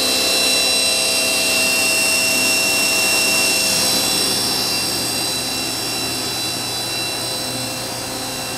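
Hanwha ML12 CNC Swiss-type lathe running its cycle with the spindles at 8,000 RPM: a steady high whine made of several held tones. It grows a little quieter after about four seconds.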